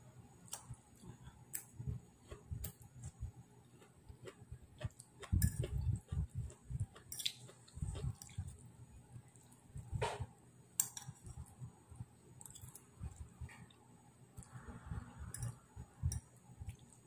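A person chewing a mouthful of pancit noodles close to the microphone, in irregular bouts, with occasional sharp clinks of a fork on the plate.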